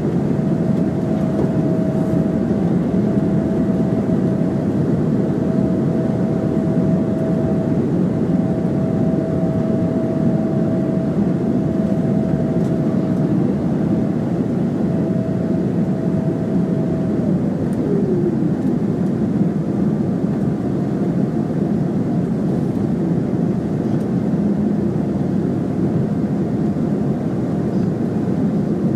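Boeing 777-300ER's GE90 jet engines running in a steady loud roar, with a high tone that holds and then glides down in pitch about two-thirds of the way through.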